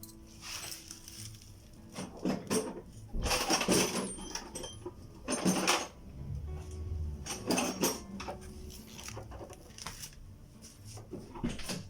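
Metal clinking and scraping as steering rack parts are handled and worked on, in several separate bursts.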